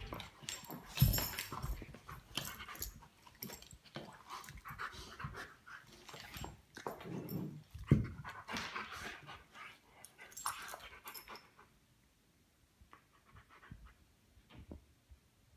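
Two dogs, a Great Pyrenees and a smaller wire-haired dog, play-fighting while lying on a wooden floor: panting, mouthing and scuffling, with sharp knocks about a second in and again near eight seconds. It goes much quieter over the last few seconds.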